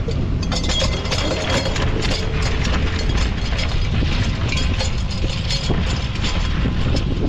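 New Holland T7.210 tractor engine running steadily, with frequent irregular clattering and rattling knocks over the top.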